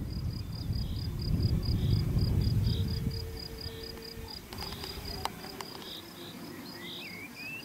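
A cricket chirping steadily in a meadow, about five short high chirps a second. A low rumbling noise runs underneath and dies away about three seconds in, and a bird calls briefly near the end.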